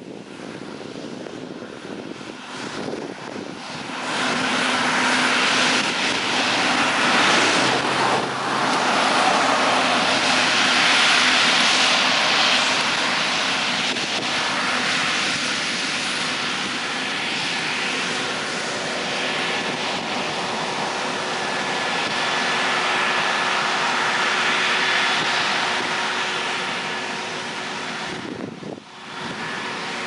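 Combine harvester running while harvesting corn: a steady drone of engine and threshing machinery with faint steady whines on top, growing louder about four seconds in.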